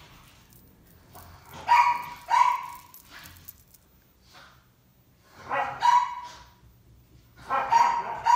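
A dog barking in short bursts indoors: a pair of barks about two seconds in, another burst around six seconds, and more near the end.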